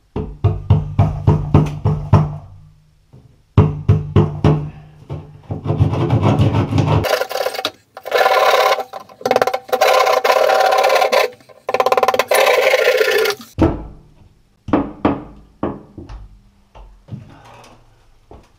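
Background music with a beat and heavy bass, stopping abruptly about three-quarters of the way through. It is followed by a few scattered sharp knocks.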